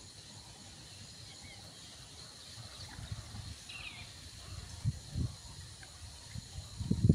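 Quiet outdoor ambience: a steady insect hum with a few short bird chirps. From about halfway, low rumbling thuds come in and grow louder near the end.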